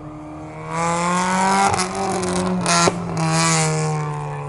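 Small mini-class race cars' engines passing close by at racing speed, swelling about a second in and dropping slightly in pitch as they go past, fading near the end.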